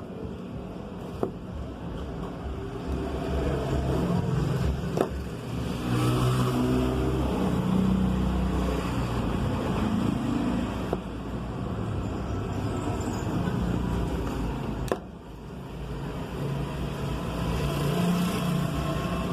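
A motor vehicle's engine running, swelling and fading, with three sharp clicks or knocks.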